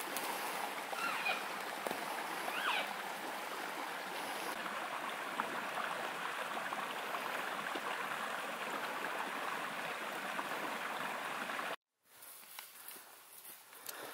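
A mountain stream running with a steady rush of water. Two brief high chirps sound over it in the first few seconds. The water sound cuts off abruptly near the end.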